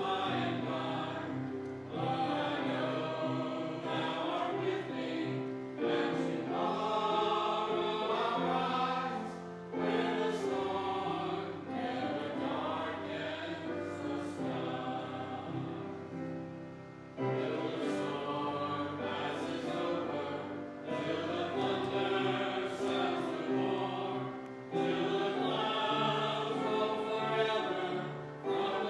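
Church choir singing a song in phrases of held notes a few seconds long, with short breaks between phrases.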